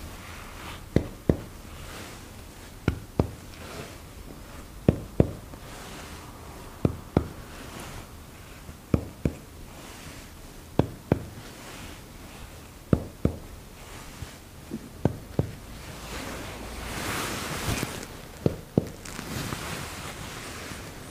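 Chest percussion: a finger tapping on a finger laid flat on a man's bare chest wall, two quick taps at each spot, the pairs coming about every two seconds. A soft rustle of movement fills a short gap near the end.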